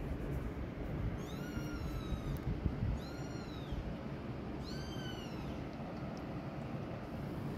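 A kitten mewing three times in quick succession, thin high-pitched calls that rise and fall, as it struggles to nurse from its mother. A steady low rumble runs underneath.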